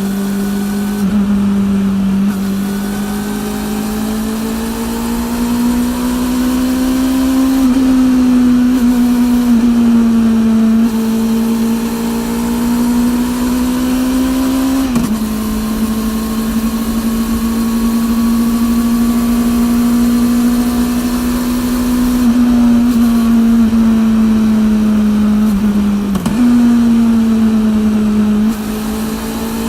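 Honda CB400 NC42 inline-four with a TSR E02 slip-on exhaust, riding at steady mid revs; the pitch drifts gently up and down and dips sharply for a moment about six times. The drive chain is loud, worn enough that the rider plans to replace it.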